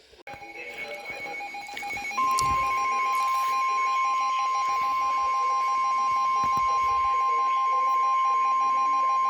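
Emergency weather alert tones: a rapid pulsing beep, joined about two seconds in by a steady, loud single-pitch warning alarm tone that holds unbroken, signalling that a new severe thunderstorm warning is about to be read.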